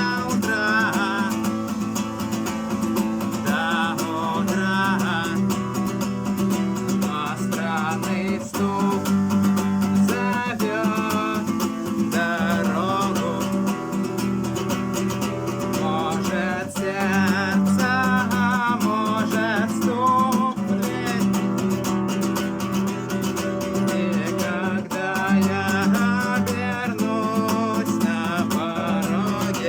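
Acoustic guitar played as a song accompaniment in a steady rhythm, with a voice singing along at intervals.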